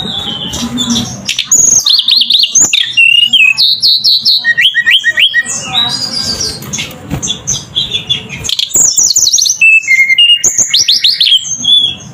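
A bird singing loudly: fast runs of high chirps, many sweeping down in pitch, in several phrases with a brief lull in the middle.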